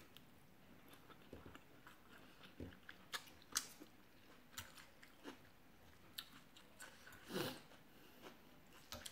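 Faint chewing and mouth sounds of a person eating rice noodles and fish balls, with scattered light clicks of a fork against the plate and a short louder noise about seven seconds in.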